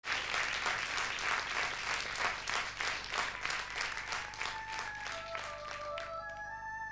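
Theatre audience applauding, the clapping falling into a steady beat of about three claps a second, which fades away near the end. About four and a half seconds in, a slow instrumental melody of held single notes enters.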